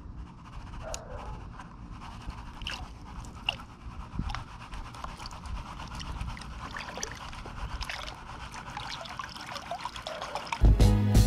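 Water and wet gravel trickling down a rubber-matted sluice box, with small grains ticking irregularly. Music comes in loudly near the end.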